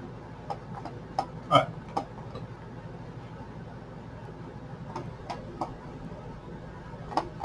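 Scattered sharp clicks and taps at an irregular pace, the kind made while working a device to look something up, over a low steady hum. The loudest, a fuller knock, comes about a second and a half in, and there is a cluster around five seconds in.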